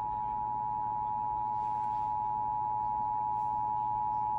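Emergency Alert System attention signal: a steady two-tone alarm held unbroken, announcing a severe thunderstorm watch.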